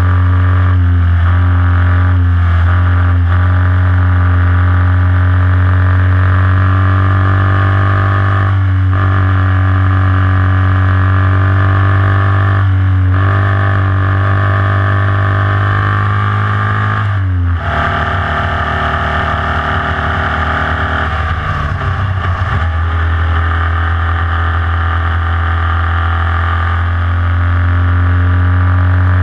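Formula Vee race car's air-cooled Volkswagen flat-four engine running hard at steady high revs. The note breaks briefly about 9, 13 and 17 seconds in, then runs rough and uneven for about five seconds before the steady note picks up again.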